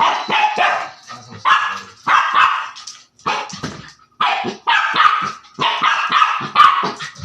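Dog barking in quick runs of sharp barks, several a second, with a short break about three to four seconds in.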